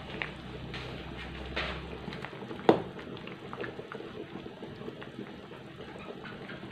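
Asam pedas curry simmering and bubbling in a metal wok, with a metal ladle stirring through it. There is one sharp clink about two and a half seconds in.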